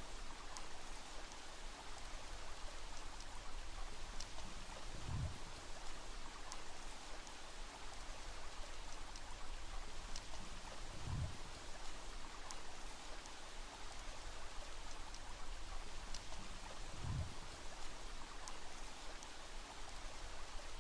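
Steady hiss of running water, with a short, deep, low pulse about every six seconds.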